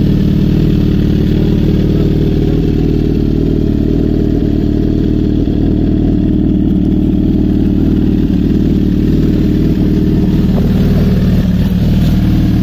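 Suzuki GSX-R1000's inline-four engine with an aftermarket Racefit exhaust, idling steadily and loudly.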